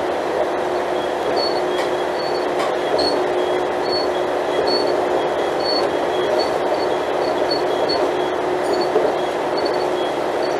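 Alstom Coradia LINT 41/H diesel multiple unit's engine running at a steady pitch and level, with short high squeaks recurring about once a second.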